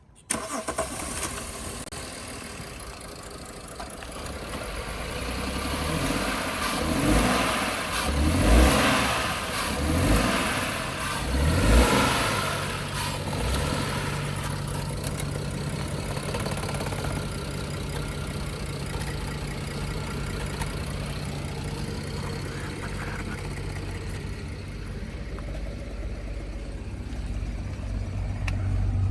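BMW N53 3.0-litre inline-six engine running with a misfire, rough and diesel-like. It is revved about four times in quick succession, then settles to a steady idle.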